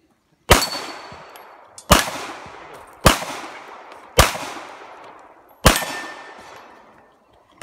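Pistol fired five times at an uneven pace, a shot roughly every second to second and a half, each sharp crack trailing off over about a second.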